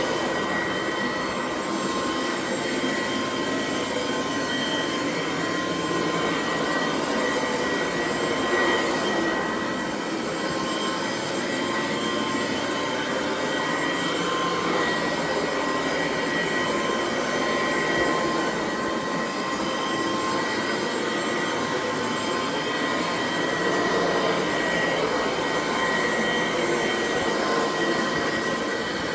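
Dual Sanitronic 80 vacuum cleaner running steadily: a rush of air with a motor whine held at a few fixed pitches, swelling and easing slightly in loudness as it is worked slowly.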